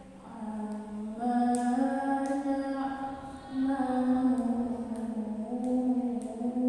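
A young woman's voice chanting Qur'an recitation in the melodic qiro'at style through a microphone, holding long, ornamented notes that step up and down in pitch.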